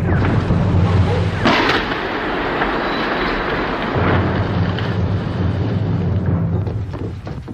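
Shell explosions striking a stone bridge, recorded on a camcorder: a sharp blast about a second and a half in, over continuous rumbling noise.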